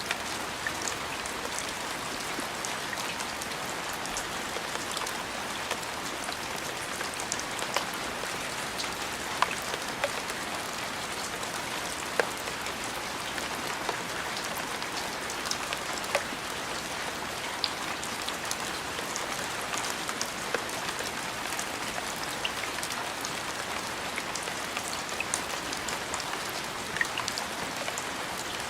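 Steady rain falling, an even hiss with scattered sharp drips and taps of single drops landing close by.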